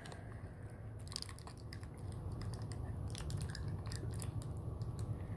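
Faint scattered clicks and light scraping of hands and tools working on a battery pack, over a low steady hum.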